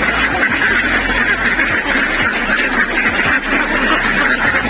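Many ducks quacking at once in a steady, unbroken chatter.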